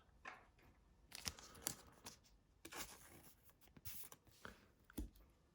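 Faint rustling and light clicks of glossy trading cards being handled and slid one over another, a few separate soft ticks spread through the stretch.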